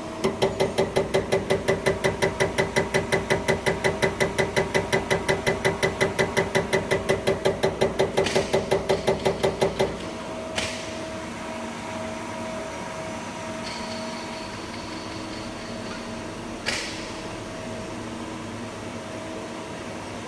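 CAT 387-9433 HEUI injector firing on a CAT900 injector test bench: a rapid, even train of loud pulses, about five a second, that stops about halfway through. After it stops the bench hums steadily, with two sharp clicks and a high steady tone.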